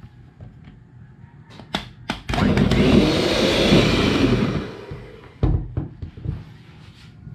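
Electric hand mixer beating egg whites and sugar into meringue, running much louder for about two seconds in the middle. A few sharp knocks follow as the beaters are lifted out.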